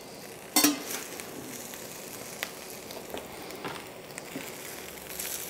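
Fried potatoes with bacon and set egg sizzling steadily in a frying pan while metal utensils work the food. There is one sharp knock against the pan about half a second in, and a few lighter taps after it.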